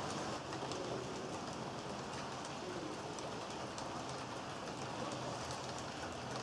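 HO-scale model freight train rolling past on the layout track: a steady rushing rattle of small metal wheels on rail, with faint, uneven clicks.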